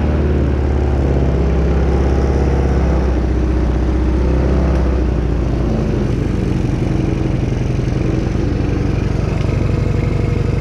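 Small single-cylinder engine of a 125cc Chinese ATV running steadily after a carburettor clean and a new spark plug. About six seconds in its speed drops to a lower, evenly pulsing run.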